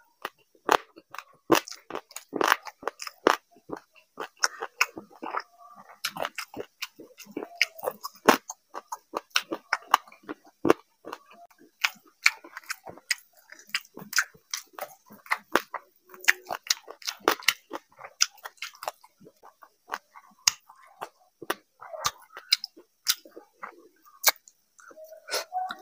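Close-miked eating sounds: chewing with frequent wet lip smacks and mouth clicks, irregular and continuous, as a mouthful of rice and curry eaten by hand is chewed.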